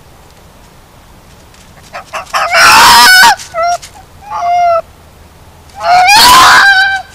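A fox screaming: about four loud, hoarse calls, each falling in pitch at its end, with the first and last the longest.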